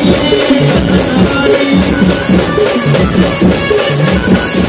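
Indian procession band's music played loud through the band truck's speaker system: a stepping melody over a steady drum beat.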